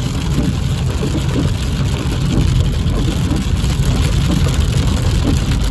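Heavy rain falling on a car's windshield and body while it drives, heard from inside the cabin over a steady low rumble of road and engine noise.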